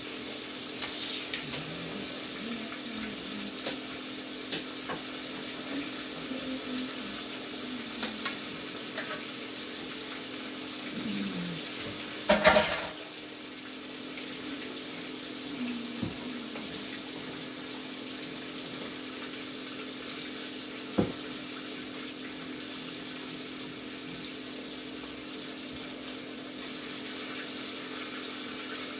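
Gravy cooking in a skillet with a steady hiss, stirred with a spoon, over a steady low hum. A louder clatter about twelve and a half seconds in and a sharp knock near twenty-one seconds.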